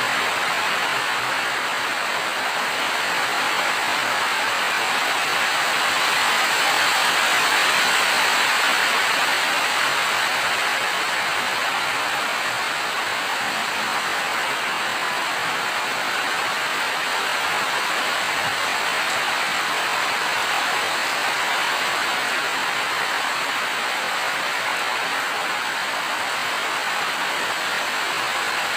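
Steady rain falling, a dense, even hiss that swells slightly about six to nine seconds in.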